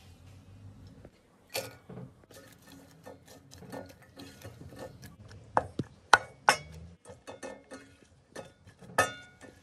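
A utensil clinking and scraping against a stainless steel pot as diced onion is stirred in it: a run of sharp knocks, some with a short metallic ring, the loudest about six seconds in and near the end.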